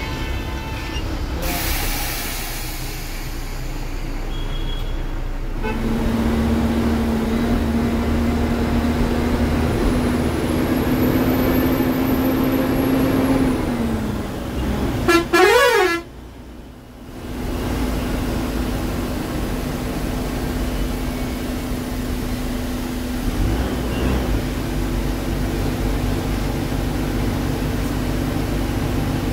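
Ashok Leyland AC sleeper bus running, heard from the driver's cabin as a steady hum. About halfway through a short warbling sweep is the loudest sound, followed by a brief drop in level before the hum returns.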